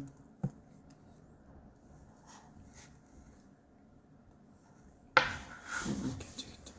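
Handling noise close to the microphone: a single click about half a second in, faint rubbing and rustling, then a sudden loud rub or bump about five seconds in.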